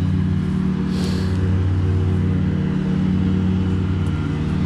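Engine of a Vermeer wood chipper running at a steady speed, with a brief hiss about a second in.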